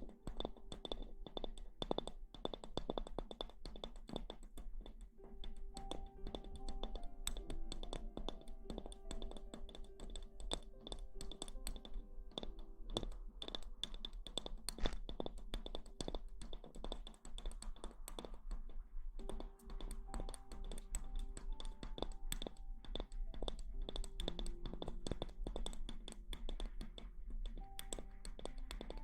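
ASMR rustling: a dense run of soft, quick clicks and scratches, many per second, over quiet background music with held notes.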